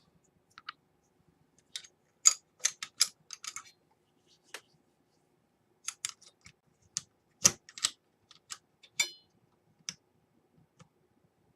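Irregular sharp clicks and light rattles of small hard parts being handled while a hard drive is fitted into a mini-ITX computer case. The clicks come in two busy clusters, with a brief fast rattle near the end.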